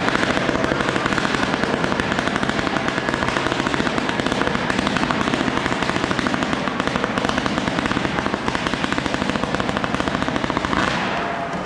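Fireworks salute: a dense, rapid run of crackling pops, going on without a break and dying away near the end.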